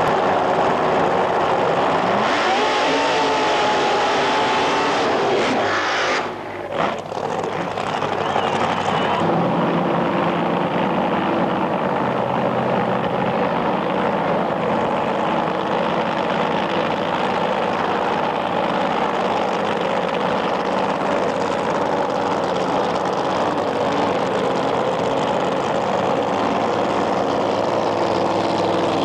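Funny car drag racing engine, a supercharged V8, running loud and continuously. The level dips briefly about six seconds in, and from about nine seconds on it settles into a steady, even drone.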